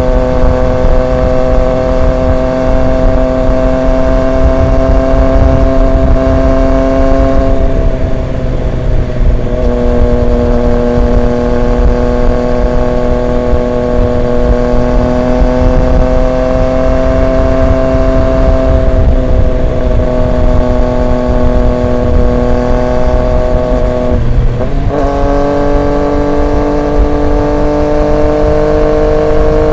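Triumph Street Triple 765 RX's three-cylinder engine through an SC Project S1 exhaust, running steadily under way with wind noise. The engine note briefly breaks about eight, nineteen and twenty-five seconds in, and settles at a higher pitch after the last.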